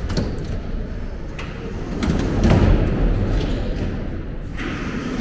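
Sliding platform doors of a closed-type metro station shutting, with a couple of knocks and a thud. A low rumble swells about two seconds in as the train behind the doors pulls away.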